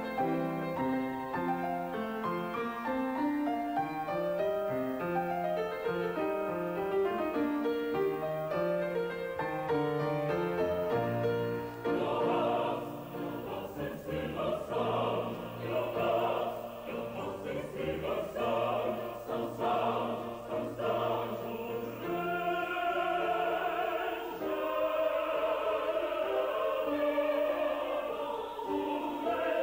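Piano playing a solo introduction, then about twelve seconds in a mixed choir of men and women enters, singing a classical choral piece in several voices.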